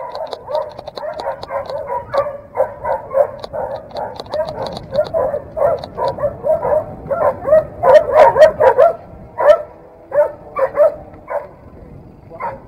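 A dog barking, a fast run of barks at about two or three a second, loudest about eight seconds in and thinning out near the end.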